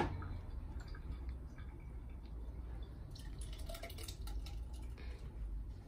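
Blended fruit juice poured from a blender jug into a glass: a faint trickle and drip of thick liquid, with a few light knocks of the jug.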